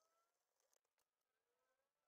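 Near silence, with faint small clicks and scratches from a fine pick and cotton swab working on the plastic casing.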